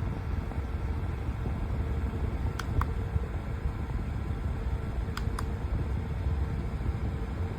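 Small battery-powered fan running with a steady whooshing rumble of moving air, with two pairs of short clicks, the first about two and a half seconds in and the second about five seconds in.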